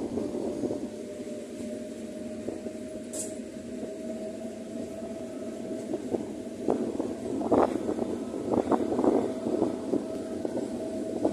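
Heritage train pulled by an FS D.445 diesel locomotive, heard from aboard a 1959-type coach: a steady running hum with a constant whine. From about halfway through, the wheels knock over rail joints and points in quick clusters, and there is a brief high squeak about three seconds in.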